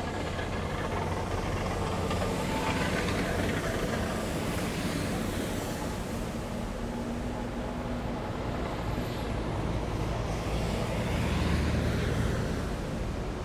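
A column of heavy military vehicles driving past, their diesel engines droning steadily, one growing louder and passing closest about eleven seconds in.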